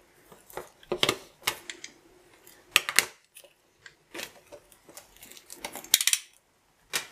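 Clear plastic wrap on a cardboard box crackling and crinkling as it is slit with a utility knife and torn off by hand, in irregular sharp crackles and clicks, loudest about a second in, around three seconds and around six seconds.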